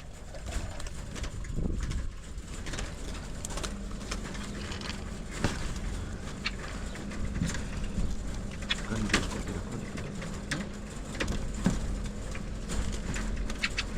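Farm birds calling, with a low steady call from about three seconds in and many short sharp clicks and taps scattered throughout.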